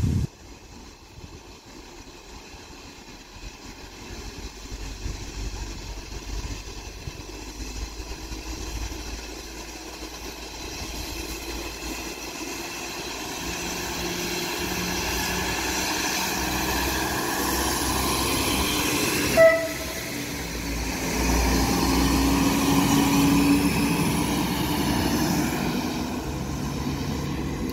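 SA137 diesel multiple unit pulling out and coming closer, its engine and wheels growing steadily louder. About two-thirds of the way in there is one short horn blast.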